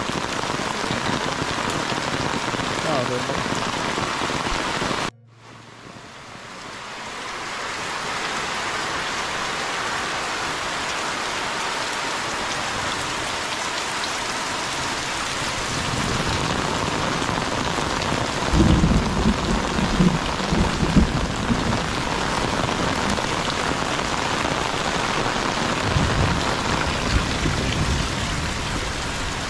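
Heavy tropical rain pouring steadily on a village house and its surroundings. It drops out suddenly about five seconds in and fades back up over a few seconds. Low rumbles swell twice in the second half.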